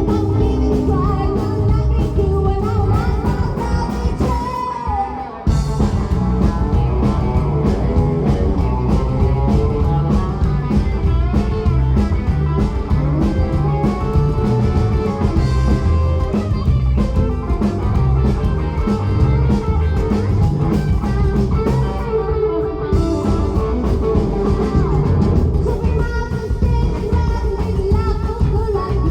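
Live rockabilly band playing loud, with guitar, drums and a singing voice. The band stops for a short break about five seconds in, then comes straight back in.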